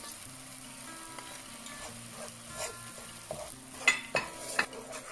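Plastic spatula stirring and scraping brown sugar into hot sugar syrup in a nonstick frying pan, with a light sizzle. A few sharp scrapes come close together in the second half.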